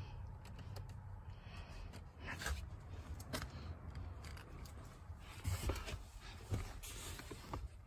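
Faint handling noise: a low steady rumble with a few scattered small clicks and rustles as a handheld camera is moved about.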